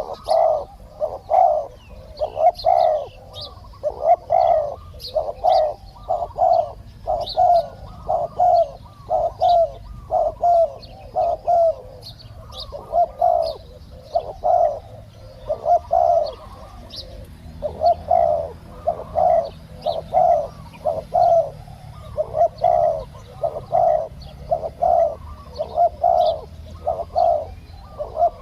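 Spotted doves cooing: a steady run of short, repeated coos, about one to two a second, with faint chirps of small birds higher up.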